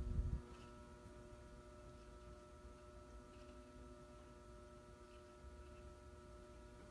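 FASCO Parlour Fan ceiling fan motor running with a steady electric hum that has several higher overtones. There are a few low thumps in the first half-second.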